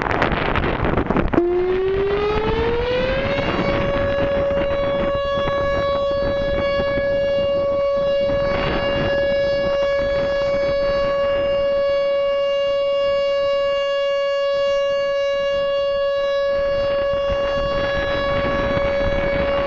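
Whelen WPS-4004 electronic outdoor warning siren, tuned to 560 Hz, sounding its steady alert tone. Its pitch rises for about two seconds and then holds one loud, unchanging pitch, as in a test of the 20-second alert. Wind noise on the microphone is heard just before the tone starts.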